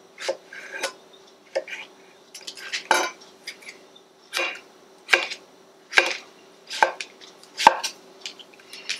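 Chef's knife dicing peeled mango, the blade knocking down through the soft fruit onto a plastic cutting mat over a wooden board. A few light taps at first, then slow, single strikes roughly one a second.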